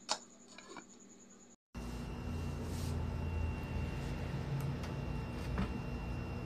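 A sharp click as the electric cooker's lid is handled by its knob. A cut follows, then a steady low hum with a few light clicks as the cooker's rotary control knob is turned.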